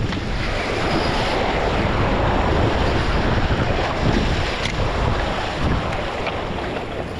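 Steady wind buffeting the microphone over the wash of surf against the jetty rocks.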